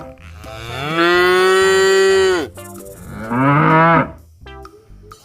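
A cow mooing twice: one long, steady moo lasting about two seconds, then a shorter moo that rises and falls. Soft plucked-guitar background music plays underneath.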